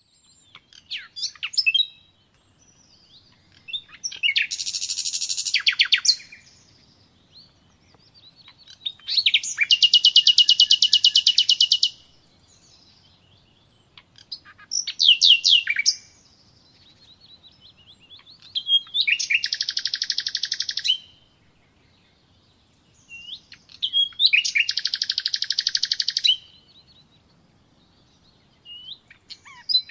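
A songbird singing in repeated phrases of rapid high trills and chirps, each a second or three long, coming about every five seconds with short pauses between.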